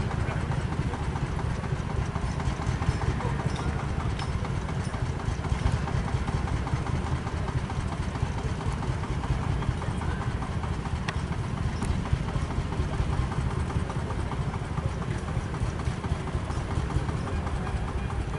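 An engine idling steadily: a low, even rumble with a rapid, regular pulse.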